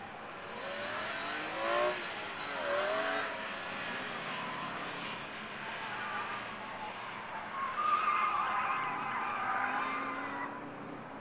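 Autocross car's engine revving hard through short rising pulls as it accelerates between cones, then its tyres squealing through a turn from about eight seconds in.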